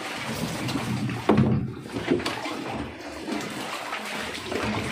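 Water sloshing and splashing while soaked gear is shifted about, with a few knocks, the loudest about a second and a half in.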